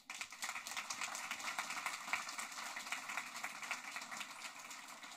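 Audience applauding: many hands clapping, starting suddenly and slowly thinning out toward the end.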